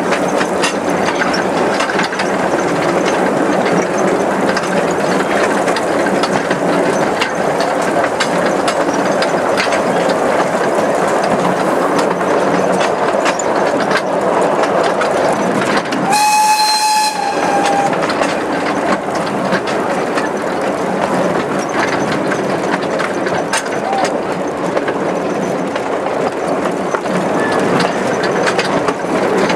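A 15-inch-gauge steam train running, heard from an open carriage: a steady clatter of wheels over the rail joints. About sixteen seconds in, the steam locomotive's whistle sounds once for about a second.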